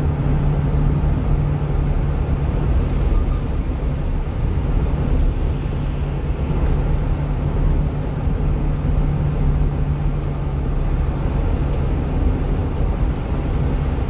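Cab of a 1-ton refrigerated box truck cruising on the expressway: a steady low engine hum over constant road noise from the tyres on the wet road.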